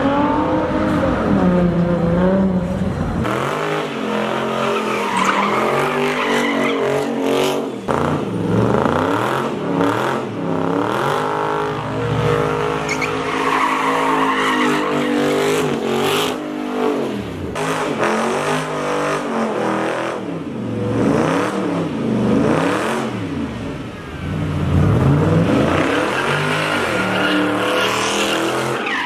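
A car doing burnouts: its engine revs up and falls back over and over while the tires squeal against the pavement.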